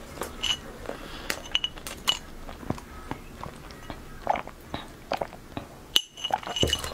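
Close-miked mouth sounds of eating a white-chocolate-coated red velvet snack: chewing with small crunchy clicks, then sips of water through a straw from a glass, with a few light clinks of the glass.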